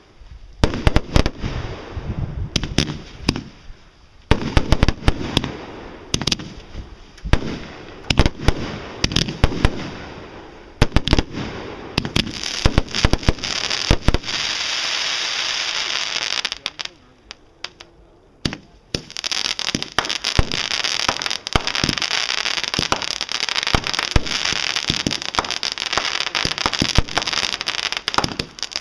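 Fireworks going off: a rapid string of sharp bangs over the first dozen seconds, then long stretches of dense crackling and hissing, broken by a brief lull about two-thirds of the way through.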